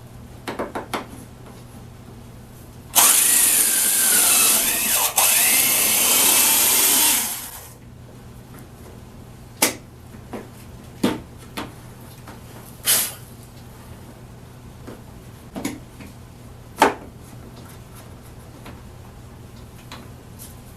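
An electric drill runs for about five seconds, its motor pitch wavering and dipping briefly partway through as the bit bites into the door. Light clicks come before it and a few scattered knocks and clicks of handled tools and parts after it.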